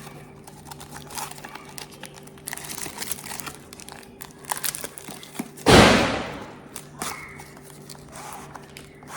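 Small product box and its packaging being handled and opened: crinkling and light clicks throughout, with one loud rushing rip a little past halfway that fades within a second.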